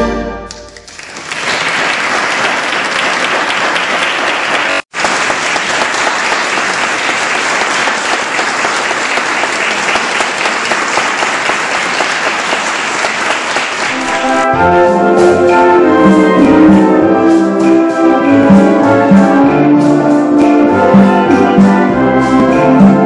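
A final held chord from an instrumental ensemble fades out, then the audience applauds steadily for about thirteen seconds, with a brief dropout near five seconds in. About fourteen seconds in, the ensemble starts playing again.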